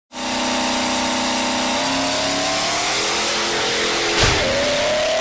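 Engine revving sound effect for a title sequence, its pitch climbing in steps, with a sharp hit about four seconds in followed by a rising whine.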